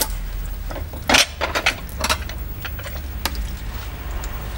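Crockery clinking as cups and saucers are handled and stacked: a few separate sharp clinks over a low steady hum.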